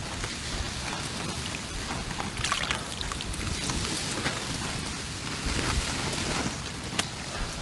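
Water dripping and trickling from a handful of azolla water fern lifted out of its pond, with scattered small patters.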